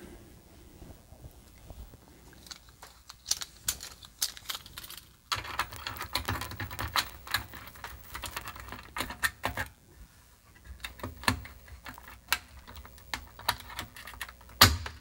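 Irregular small clicks, taps and scrapes of hands handling parts on an opened Commodore 64 motherboard while the VIC chip is worked out of its socket. The clicks come thick through the middle, with one sharp, louder click near the end.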